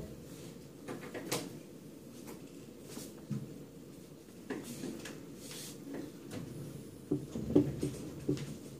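Dry-erase marker writing on a whiteboard: short scratchy strokes and taps, loudest in a cluster of sharp taps near the end, over low room noise.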